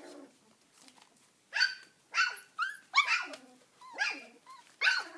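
Poodles yipping and barking in a quick series of short, high-pitched calls, starting about a second and a half in.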